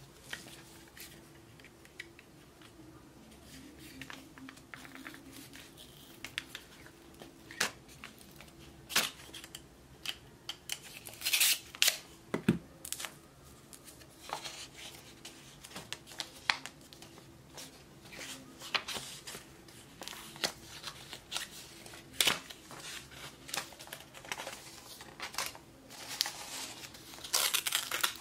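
Paper being handled and torn as a taped kraft-paper envelope is worked open by hand: irregular crinkles, rips and small taps. The loudest bursts of ripping come a little before halfway and again near the end.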